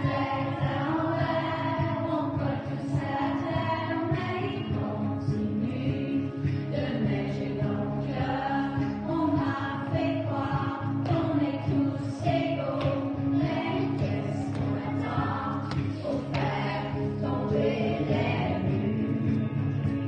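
A group of children's voices singing a song together over a steady instrumental backing.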